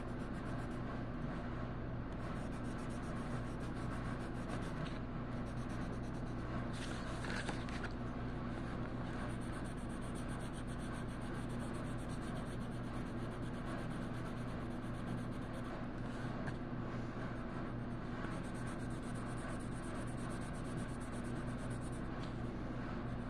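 Steady strokes of colouring on paper, a light continuous scratching and rubbing, over a steady low hum.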